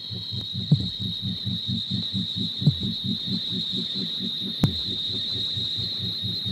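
Harsh noise / power electronics: a fast low electronic throbbing at about seven pulses a second under a steady high-pitched hiss, with a sharp crack about every two seconds.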